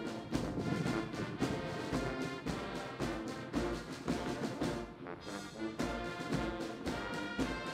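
Brass band music with brass and a steady drum beat.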